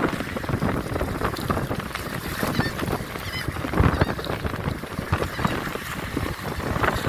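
Wind buffeting the microphone in irregular gusts, with a few short high chirps about two and a half to four seconds in.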